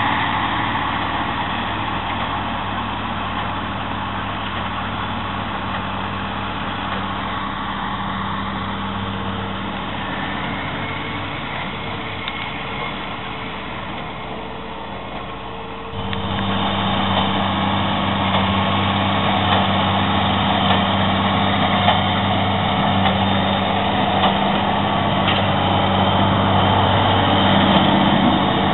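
Farm tractor engine running steadily at a distance as it pulls a hay rake. After an abrupt change about halfway through, a louder, closer tractor engine is heard running under load as it pulls a big square baler, with a few sharp knocks in the second part.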